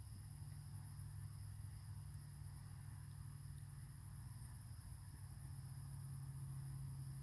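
Faint, steady night ambience of crickets and other insects chirring, over a low steady hum. There are no clear fire crackles, just a couple of faint ticks.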